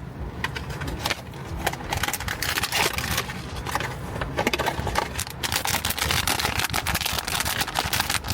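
A Pop Mart blind box's packaging being opened by hand: continuous rapid crinkling and crackling of the wrapping, with small clicks and rustles as it is pulled apart.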